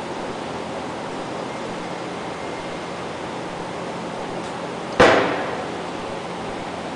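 A single sharp metal clank with a short ringing decay about five seconds in, as the heavy metal stuffing box of a centrifugal pump is tipped up on its edge against the metal workbench. A steady background hiss runs throughout.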